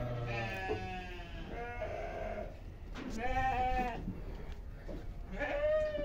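Sheep bleating: three long, quavering calls, one at the start, one about halfway and one near the end.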